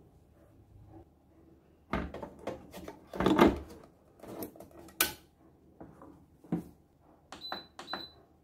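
Knocks and clatter of a loaded bread pan being set into a bread machine and the lid shut, with one sharp knock about five seconds in. Near the end come two short beeps as the machine's Menu button is pressed twice to step the program.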